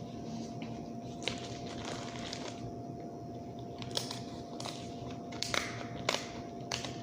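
Seafood leftovers and their container being handled for eating: scattered soft clicks and crinkles at irregular moments over a faint steady hum.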